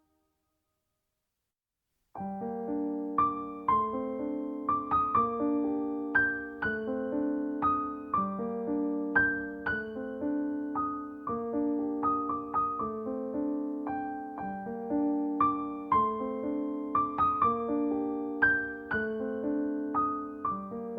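Background piano music: after about two seconds of silence, a gentle piano piece starts, with struck chords and a repeating melody at a steady pace.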